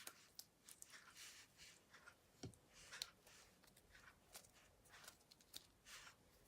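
Store-bought slime being mixed and pressed by hand: faint, irregular sticky clicks and soft squelching swishes.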